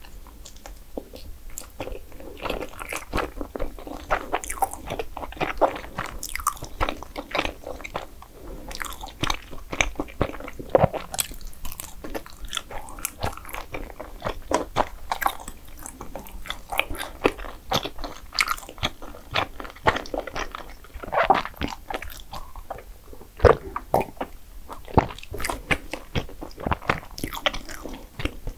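A person eating dessert up close to the microphone: bites and chewing, with many sharp, irregular crunching clicks and softer mouth sounds in between.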